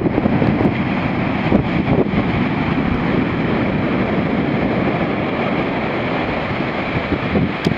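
Heavy shorebreak surf breaking and washing up the sand from a big swell, in a steady rumbling wash, mixed with wind buffeting the microphone.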